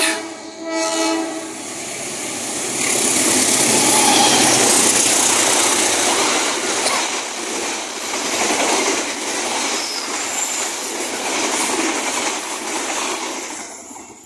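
Argo Sindoro passenger train sounding its horn as it comes up, then running past at speed with a loud, steady rush and clatter of wheels on rail for about twelve seconds.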